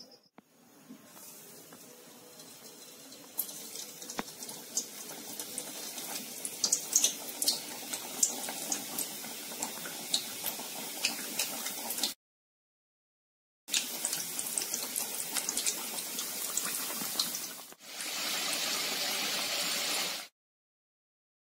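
Momos deep-frying in hot oil in a wok: a steady sizzle with many scattered pops and crackles. Near the end it turns into a denser, steadier hiss. The sound drops out to silence twice.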